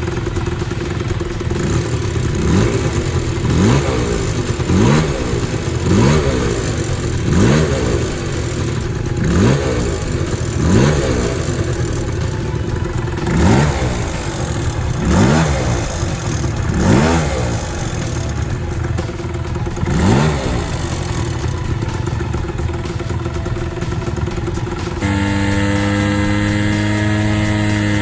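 Engine of a bored-up Honda Gyro X scooter idling and being blipped about a dozen times, each rev rising and dropping back, while its unexplained abnormal noise is being checked. Near the end a different steady sound with several held tones takes over.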